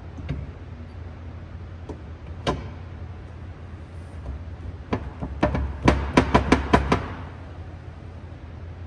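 Differential with ring gear and bearings being set down into an aluminium K-series transmission case: a few metallic clicks and knocks, then a quick clatter of about eight sharp knocks a little past halfway, over a steady low hum.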